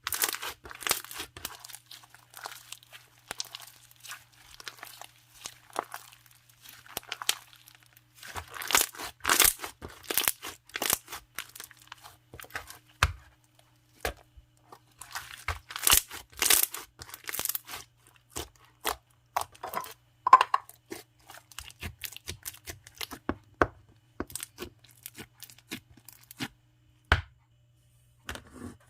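Hands squishing and stretching a clear foam slime packed with soft foam balls, giving dense crackling and popping in irregular bursts with short pauses between.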